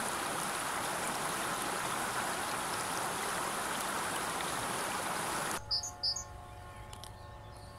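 River water rushing over a low weir, a steady rush that cuts off about five and a half seconds in. Two short bird chirps follow against quieter background.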